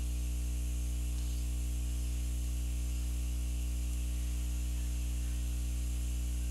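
Steady low electrical mains hum with a stack of overtones and a faint hiss, unchanging throughout; no brush or paper sounds stand out above it.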